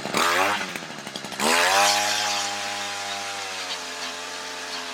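Engine-driven ice auger revving up, first right at the start and again about a second and a half in, then running steady as it bores a fishing hole through the ice, its pitch sagging slightly under load.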